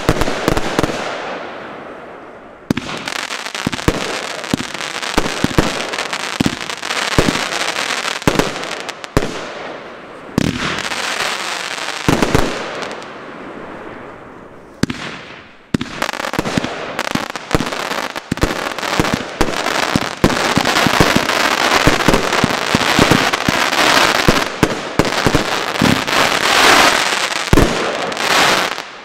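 Fireworks compound cake (91 shots in mixed 20/25/30 mm calibre) firing in rapid volleys: sharp launch thumps and bursts over a dense crackling haze. There are short lulls between sequences, and the loudest, densest stretch comes just before it stops near the end.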